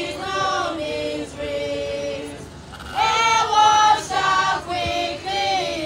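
A women's choir singing a hymn unaccompanied, in long held notes. The voices drop to a quieter phrase about two seconds in and come back louder a second later.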